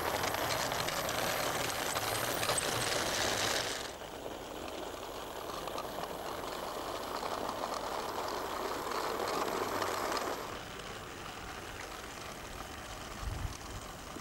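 Small garden-railway locomotive and its train of skip wagons running on the track, with a steady rattling clatter of wheels on rail. It is loud at first, drops about four seconds in, and drops again about ten seconds in as the train moves away.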